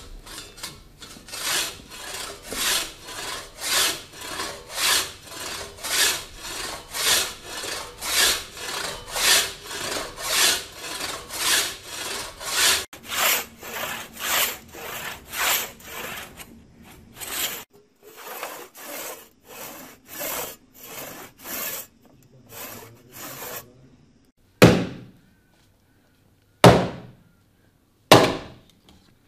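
Japanese madonoko pull saw cutting across a green oak trunk in steady rasping strokes, about one and a half a second, cutting on the pull. Near the end the sawing stops and an axe strikes the oak three times, each blow a sharp crack.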